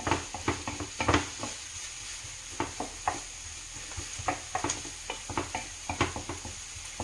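Wooden spatula stirring and scraping food around a frying pan in irregular strokes, over a steady sizzle of onions frying in olive oil.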